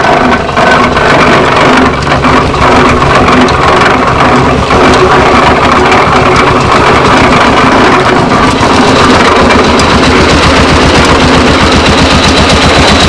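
Old John Deere two-cylinder tractor engine running steadily under load, driving a sugar cane roller mill by a flat belt off its belt pulley. The exhaust beats fast and even.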